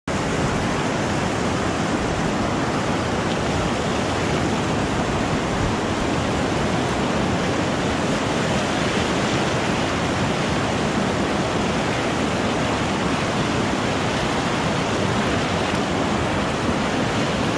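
Whitewater rapids of a river rushing steadily, heard close to the water, an even, unbroken wash of noise with no let-up.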